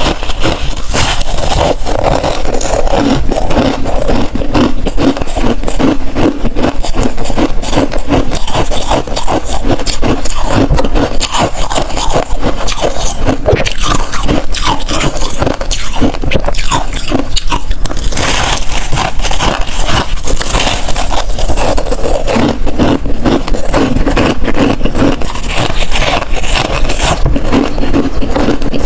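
Freezer ice being bitten and chewed close to the microphone: a dense, continuous stream of crunches and crackles.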